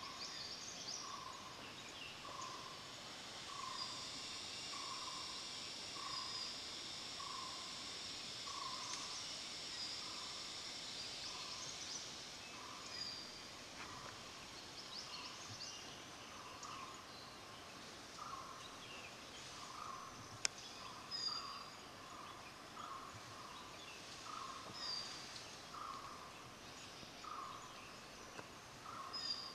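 Faint forest ambience: an animal's short call repeated about once a second, over a steady high buzz, with scattered high chirps and a single sharp click about twenty seconds in.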